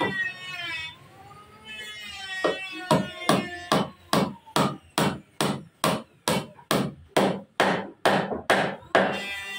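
Hammer blows in a woodworking shop: a steady run of about fifteen strikes, some two and a half a second, starting about three seconds in.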